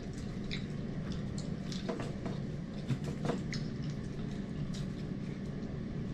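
Eating sounds: scattered small wet clicks and smacks of chewing and fingers picking at fried chicken and rice, over a steady low hum.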